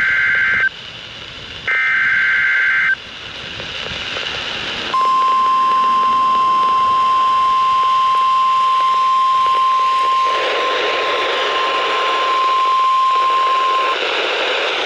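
Emergency Alert System broadcast from NOAA Weather Radio: two short screeching bursts of SAME digital data, then the steady 1050 Hz weather-radio warning alarm tone held for about nine seconds, over a hiss of radio static. The tone announces a warning message about to be read.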